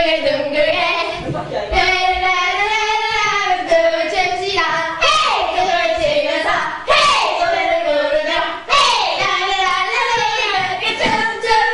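Several young women's voices singing a playful chant together.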